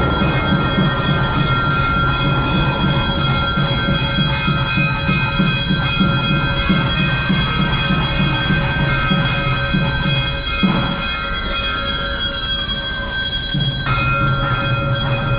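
Temple bells ringing continuously during a Hindu puja, many steady ringing tones over a fast low beat. The beat drops out for about three seconds near the end.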